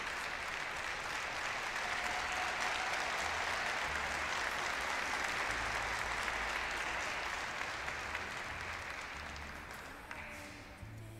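Audience in an ice rink applauding steadily, the clapping thinning and dying away over the last few seconds.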